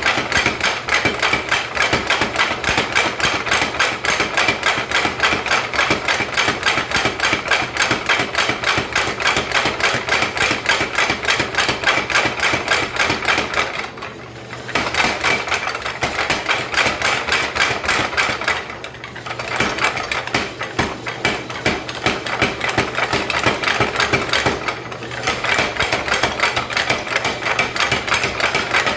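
Mechanical power hammer striking a Brent Bailey 'Porky' flatter in rapid, steady blows with a metallic ring, stopping briefly three times between runs.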